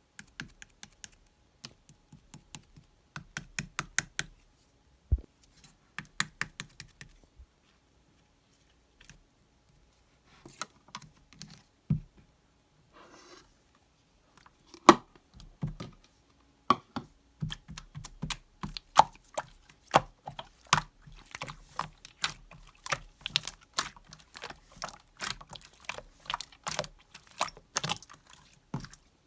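Rapid clicking taps in bursts with short pauses, like typing, growing denser and steadier in the second half.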